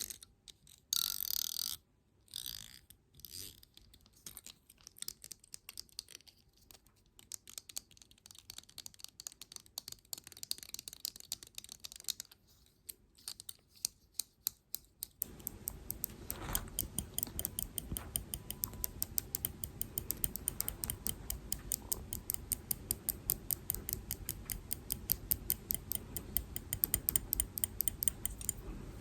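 Close-miked ASMR trigger sounds: scattered light taps and scratches at first, then about halfway through a fast, even clicking, several clicks a second, over a low steady background.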